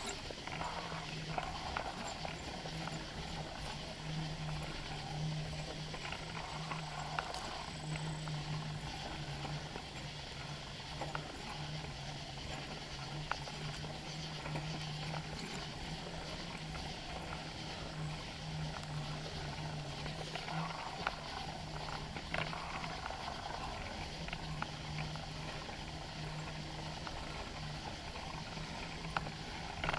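Bicycle in motion heard through a handlebar-mounted camera: steady rolling noise with a low hum and scattered small rattles and clicks.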